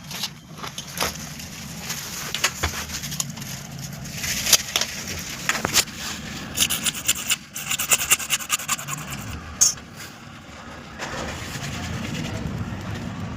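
Scattered knocks, clicks and scraping strokes from hand work, busiest in the middle, over a steady low hum.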